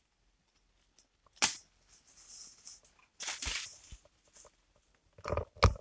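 Brush and leaves rustling in forest undergrowth, with one sharp snap, like a twig breaking, about a second and a half in and a short burst of rustling a little after three seconds.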